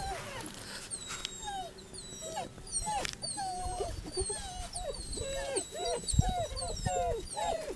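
Deerhound puppies whining: a string of short, high whimpers, about two a second, starting about two seconds in.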